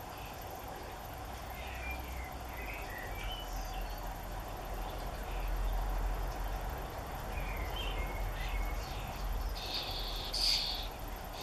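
Starling nestlings giving short, high begging chirps every second or so, then one louder raspy call about ten seconds in as a chick gapes wide. A steady low rumble runs underneath.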